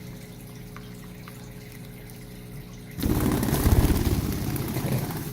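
A lovebird bathing in a shallow bowl of water, splashing and fluttering its wings in a fast burst that starts about three seconds in and lasts about two seconds. Before the burst there is only a faint steady hum.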